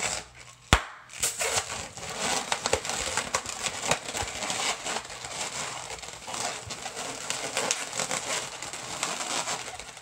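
Inflated latex modelling balloons squeaking, creaking and rubbing against each other as they are twisted and wrapped by hand, with one sharp snap a little under a second in.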